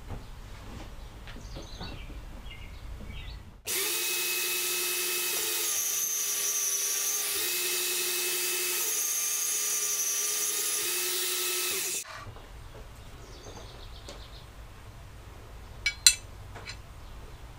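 Portable band saw running and cutting through 3/8-inch steel rebar for about eight seconds, with a steady whine that dips slightly under load, starting and stopping abruptly. Near the end, two sharp metallic clicks.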